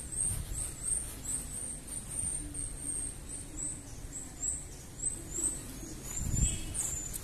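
Small songbirds chirping: a steady run of short, high, upward-sliding notes, about two or three a second, over a low rumble, with a dull thud about six seconds in.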